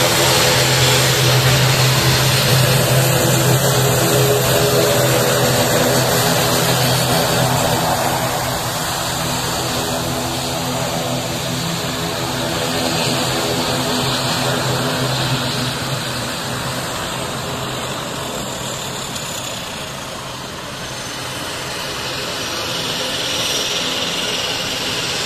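ATR 72 turboprop airliner's two engines and propellers running as it taxis: a steady drone with a low hum. Loud at first, it fades as the aircraft moves away, then swells again near the end as it turns back.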